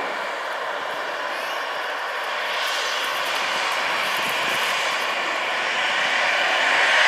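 Airbus A320 jet engines running steadily as the airliner moves on the ground: a continuous rush with a faint whine that grows louder about halfway through and louder again near the end.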